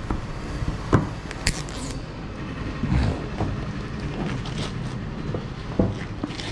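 Handling and opening a new smartphone's box: a few short knocks and clicks over a steady background hum.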